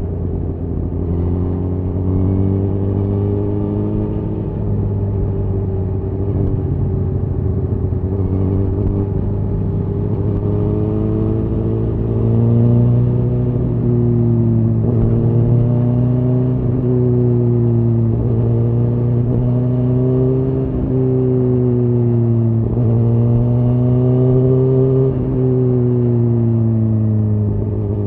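Suzuki GSX-R1000R inline-four engine through a Yoshimura R-11 SQ exhaust, running under way at moderate revs. Its pitch rises and falls gently several times as the throttle is worked, with a few brief dips in the second half.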